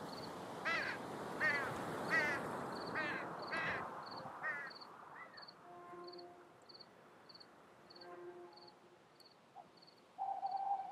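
A series of about six short, harsh animal calls in the first half, over a faint high pip repeating about twice a second. Then come quieter held tones like soft music notes, and a brief held tone near the end.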